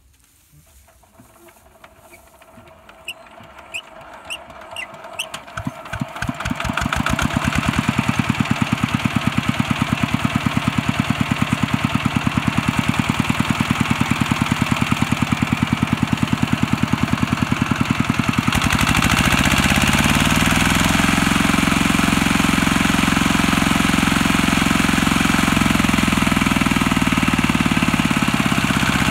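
Single-cylinder diesel engine of a two-wheel walking tractor starting up, its firing pulses speeding up until it catches about six seconds in. It then runs with a steady, even knock. About eighteen seconds in it runs louder and deeper, working to drive the tractor out of the soft field where it is stuck.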